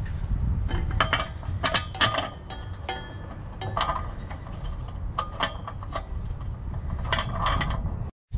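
Irregular metallic clicks and clinks as a bolt is threaded and snugged up into a steel Steeda jacking rail, over a steady low rumble. The sound cuts off abruptly near the end.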